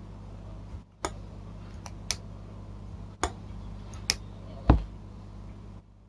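Kizer ZipSlip titanium-handled slipjoint knife worked open and shut by hand: a handful of sharp clicks as the blade snaps into position, the loudest near the end with a dull knock.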